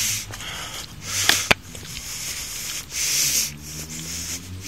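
A person breathing heavily close to the microphone, a breath about every one and a half to two seconds. There is a sharp click about a second and a half in.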